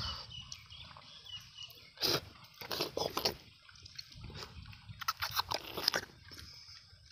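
Wet slurping and biting as tender palmyra fruit (ice apple, nungu) is eaten, the watery jelly flesh sucked out of the fruit's kernels. The sounds come as short, irregular slurps and bites, clustered about two, three and five to six seconds in.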